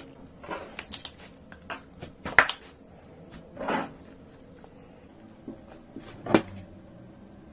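Slime being squeezed and poked, giving sharp wet clicks and pops at irregular intervals, loudest about two and a half seconds in and again just past six seconds.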